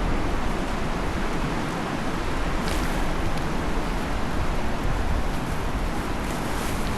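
Rushing mountain river water, a steady unbroken roar of flowing water.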